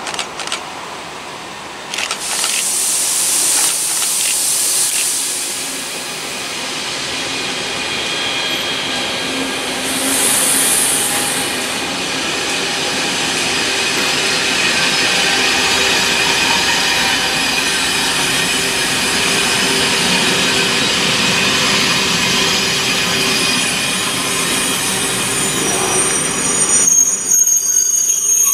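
CFL Class 2000 (Z2) electric multiple unit passing, a steady mix of wheel-on-rail noise and motor whine with high squealing tones. The sound swells a couple of seconds in and cuts off suddenly near the end.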